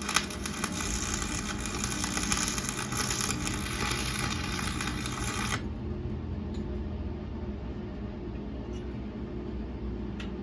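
Welding arc crackling steadily for about five and a half seconds, then cutting off suddenly. A steady low hum carries on, with a few faint clicks near the end.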